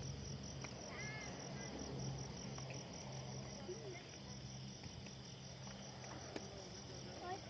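Many crickets chirping together in a steady, rapidly pulsing high-pitched trill.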